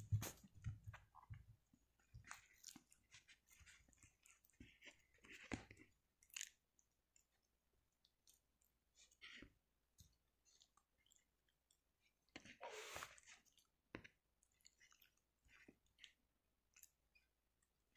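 Dog chewing and mouthing a sausage in a bread bun: faint, scattered mouth clicks, with a couple of louder bursts about five and a half and thirteen seconds in.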